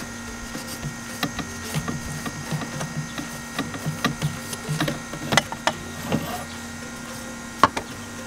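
Scattered light clicks and taps of a metal socket extension and hands working a loosened injection control pressure sensor out of a diesel engine's valve cover, with one sharper click near the end, over a steady low hum.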